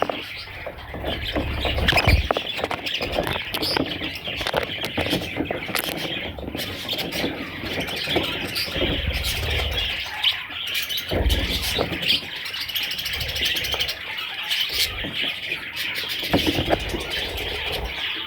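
Budgerigars chattering and chirping continuously, with squeaky calls and a few low thuds.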